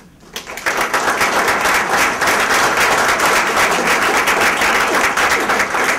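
Audience applauding. The clapping starts about half a second in and continues steadily.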